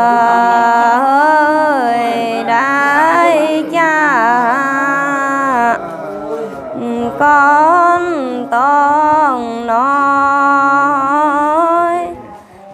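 Traditional wedding song sung by a single voice in long, drawn-out, wavering notes, phrase after phrase with short pauses between.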